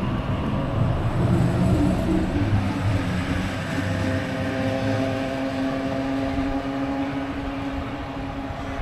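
Sydney Trains electric suburban train rumbling at the station, with a steady electrical hum joining in about halfway through.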